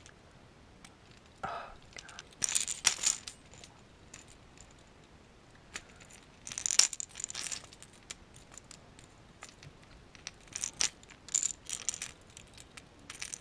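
Small metal clicks and rattles from a treble hook and split ring being twisted around with split-ring pliers on a crankbait, working the hook off the ring. They come in short scattered clusters with quiet gaps between them.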